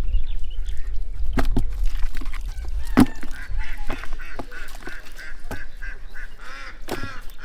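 Waterfowl calling: a quick run of short, nasal calls from about three seconds in, with another few near the end. Scattered sharp clicks and knocks and a low rumble run underneath.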